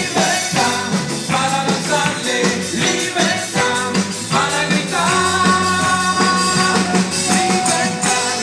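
Live band playing fast, upbeat Latin-style Christian praise music, with congas, keyboard and dancers' shaken tambourines keeping a dense rhythm; a long melody note is held about five seconds in.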